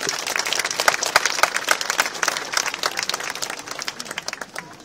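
Crowd applauding, a dense clapping that is strongest in the first few seconds and dies away near the end.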